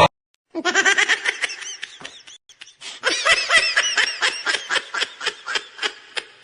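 Laughing meme sound effect: quick repeated 'ha' pulses in two runs, the second starting about three seconds in, after a brief pause.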